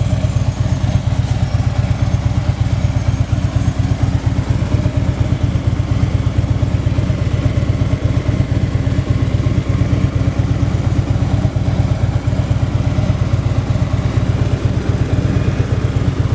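Harley-Davidson Electra Glide Ultra Classic's air-cooled Twin Cam 103 V-twin idling steadily through an aftermarket exhaust, a loud, even low pulse with no revving.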